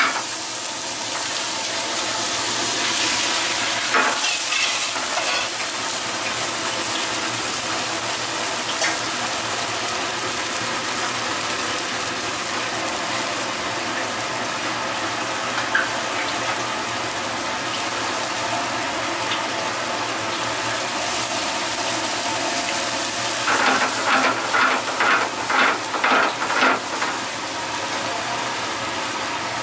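Bacon, onion and mushrooms frying in a nonstick pan over a high gas flame, then rice bubbling in liquid, with a steady sizzle throughout. A quick run of stirring strokes against the pan comes near the end.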